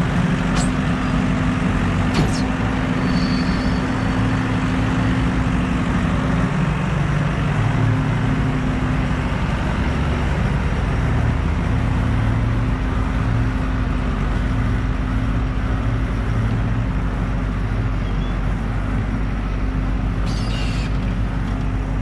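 Farm machinery diesel engine running in a steady, deep drone, from a JCB telehandler and feeder mixer wagon at work, with a couple of clanks in the first few seconds.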